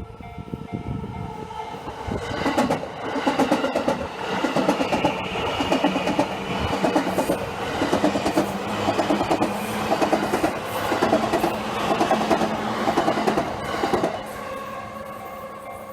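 A JR Yamanote Line electric commuter train passing over a level crossing. Its wheels clatter rhythmically over the rail joints for about twelve seconds, while the crossing's warning bell rings steadily underneath.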